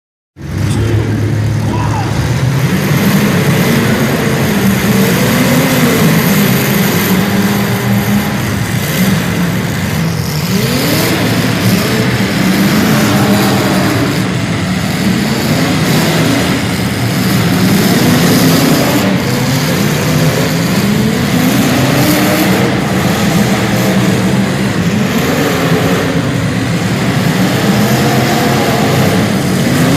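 Vehicle engines running loudly under load, their pitch rising and falling over and over as they rev.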